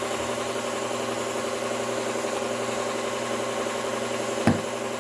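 Belt sharpener running steadily as a chisel bevel is ground on the belt, with one sharp knock about four and a half seconds in.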